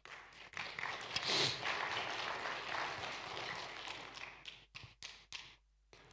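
Congregation applauding for several seconds, the clapping thinning out into a few last separate claps near the end.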